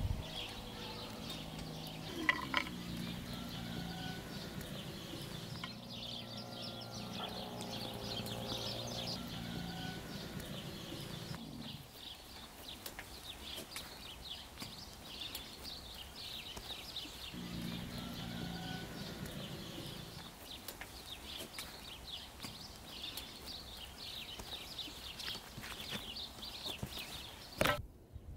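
Rural farmyard ambience: small birds chirping without a break, with stretches of low calls from farm animals, a long one starting about two seconds in and a shorter one later. A sharp click near the end.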